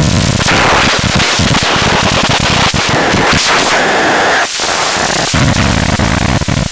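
DIY synthesizer putting out harsh, crackling noise over a low rumble, full of irregular clicks and pops.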